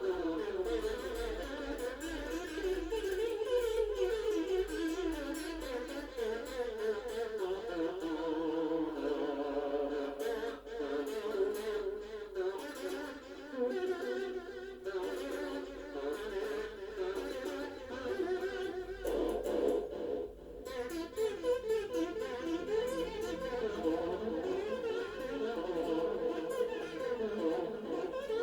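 Music of sustained, wavering pitched tones with strong vibrato, several lines at once in the middle range.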